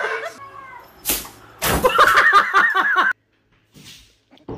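A cat yowling in a rapid run of short, repeated calls for about a second and a half, cut off abruptly; a single sharp knock comes just before.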